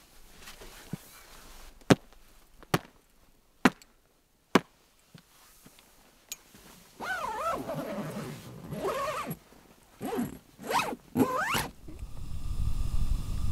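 Four sharp knocks about a second apart as someone climbs the rooftop tent's ladder, then the tent door zipper pulled in several strokes. Near the end a steady low rush begins.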